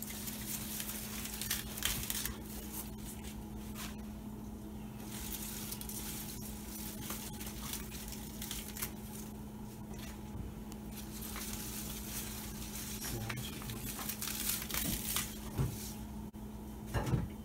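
Light rustling, crackling and tearing as basil leaves are stripped off their stems by hand, over a steady low hum.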